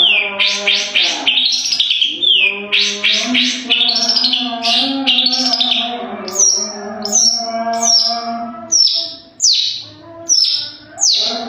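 Long-tailed shrike singing hard: a fast, varied chatter of high notes, then from about halfway a run of sharp falling whistled notes, about two a second.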